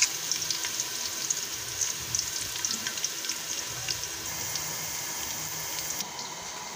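Sliced onions frying in hot oil in a metal pot: a steady sizzle with many small crackles, easing off a little near the end.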